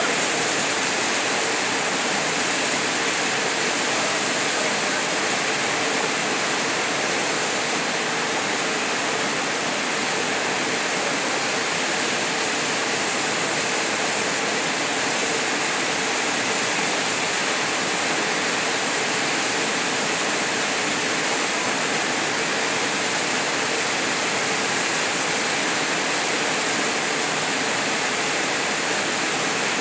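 Steady rush of a small waterfall pouring into a pool close by, an even, unbroken roar of falling water.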